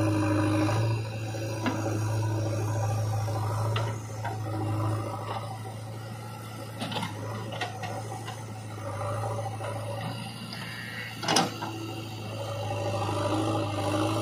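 JCB 3DX backhoe loader's diesel engine running steadily under hydraulic load as the backhoe digs and dumps soil, with a few knocks and clatters of bucket and clods, the loudest about eleven seconds in.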